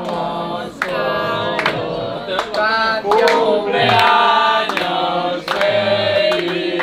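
A group of people singing together in held, sliding notes, as in a birthday song, with sharp knocks or claps between the phrases.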